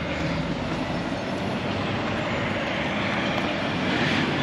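Steady rumble of a passing vehicle, growing louder near the end.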